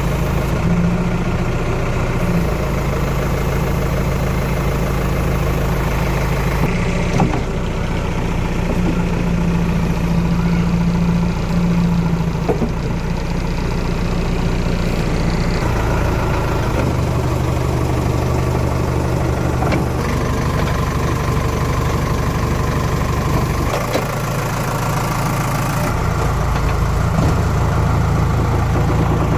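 Heavy diesel engine running steadily at low revs. The engine note shifts abruptly several times.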